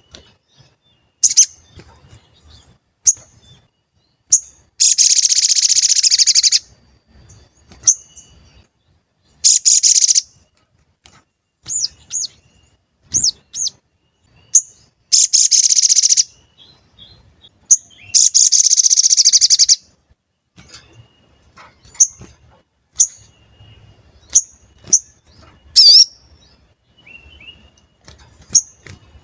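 Crimson sunbird (sogon) singing: sharp, high 'cuit' chirps every second or so, broken four times by a rapid high trill lasting about one and a half to two seconds. This is a lure call used to provoke other sogon into singing.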